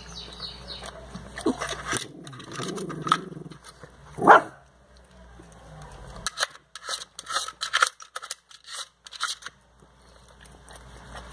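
Dog licking and gnawing at a block of ice, teeth on ice making a scatter of sharp clicks and crunches, the loudest about four seconds in and a quick run of them in the second half.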